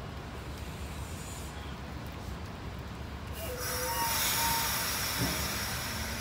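SEPTA Comet passenger coaches rolling slowly past with a steady low rumble. About three and a half seconds in, a loud hiss and brief wheel squeals rise over it.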